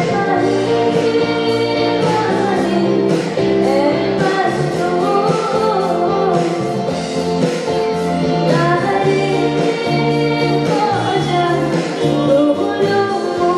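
A woman singing an Assamese song live into a microphone, her melody gliding and ornamented, backed by a live band with bass guitar and keyboard over a steady beat.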